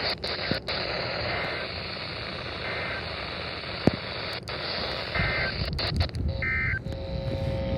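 Weather radio reception full of static hiss and crackle, with short faint data bursts of an EAS/SAME alert header breaking through every second or so. About seven seconds in, a receiver starts a steady buzzing alert tone: it has been set off by the first header.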